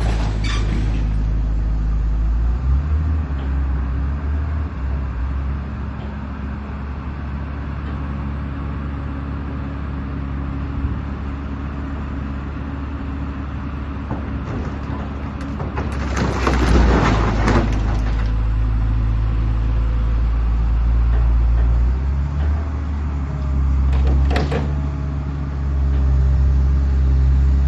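Diesel engine of a large Sennebogen grapple material handler running under working load, its note stepping up and down as the machine works. About two-thirds through there is a loud rushing burst lasting about two seconds, and a sharp clank comes near the end.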